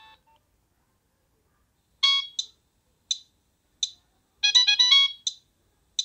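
Nokia 3585i's speaker playing a preloaded ringtone preview as tunes are scrolled. After a short pause, a synthesized melody starts about two seconds in: a few separate notes, then a quick run of notes near the end.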